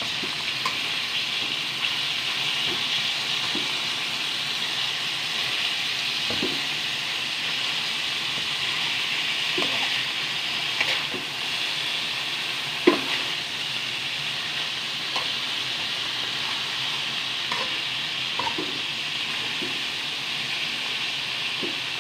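Chicken and leafy greens sizzling steadily as they are stir-fried in a steel wok, a metal spatula scraping and knocking against the wok now and then. One sharp knock just past the middle is the loudest.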